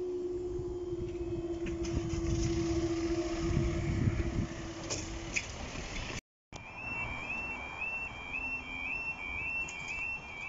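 Level crossing barrier machinery humming steadily as the booms rise, with a couple of clicks near the end before the hum stops about five seconds in. After a brief break, the crossing's two-tone warbling warning alarm sounds continuously as the red lights flash.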